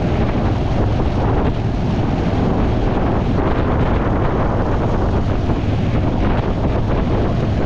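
Wind buffeting the microphone, a loud and steady rumbling rush.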